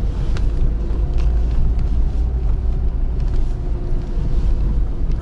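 Car driving slowly along a rough, overgrown forest track: steady low engine and road rumble with a faint hum, and scattered light knocks and clicks.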